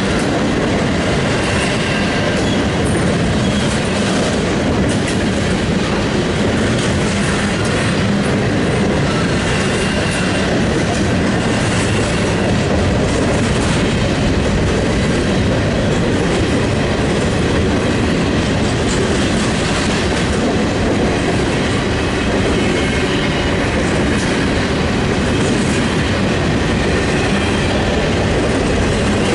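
Double-stack intermodal container train passing close by: a loud, steady rumble and clatter of the cars' wheels on the rails that goes on without a break.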